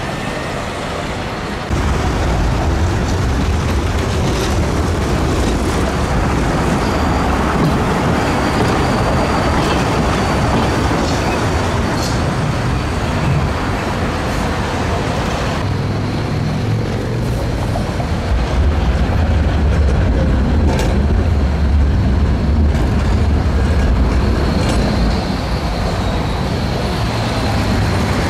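City street traffic with trams running over rails and junctions: a steady low rumble of passing vehicles and tram wheels, with occasional clicks and faint high squeals.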